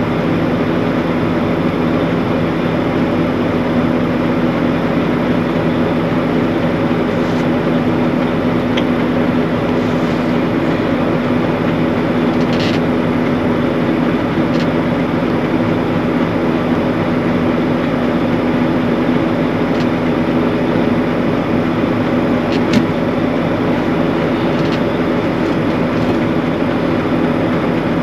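Diesel engine of harvest machinery running steadily at constant speed, with a few faint clicks over it.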